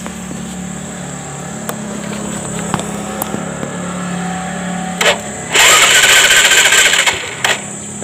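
Kawasaki Rouser 135's single-cylinder engine being cranked by its electric starter: after a steady low hum and a short burst about five seconds in, a loud starting roar with a wavering whine lasts about two seconds. The starter works in gear because the clutch safety switch has been bypassed.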